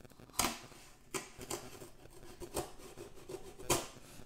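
Open scissor blade slitting packing tape along the seam of a cardboard box: a series of about five short scraping rips, the loudest about half a second in and near the end.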